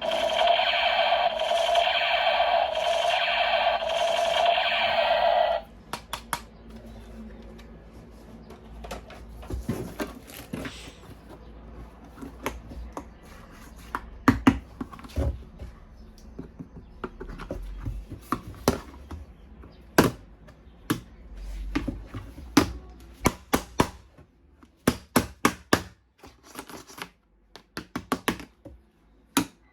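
A loud pitched electronic tone, pulsing about once a second, sounds for about five seconds and cuts off suddenly. It is followed by a long string of sharp clicks, snaps and knocks of plastic toy weapon parts being handled and fitted together.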